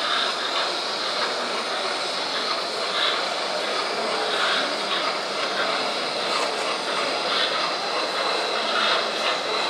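Steady background din of an exhibition hall: an even wash of noise with faint, indistinct voices in it. It starts abruptly at the cut.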